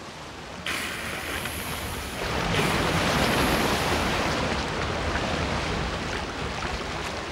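Open-sea water and wind: an even rush of waves with wind noise, getting louder about two seconds in.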